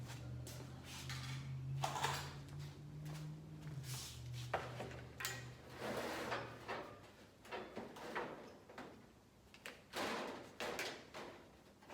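Irregular knocks, clanks and short scrapes of a flat steel strip and tools being handled and set up for bending. A low steady hum runs under them and stops about four and a half seconds in.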